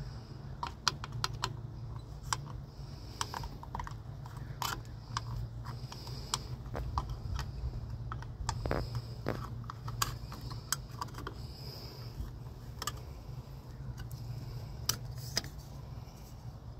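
Irregular small clicks and taps from a Volkswagen Bay Window Bus horn button and its parts being handled and worked loose on the steering wheel, over a steady low hum.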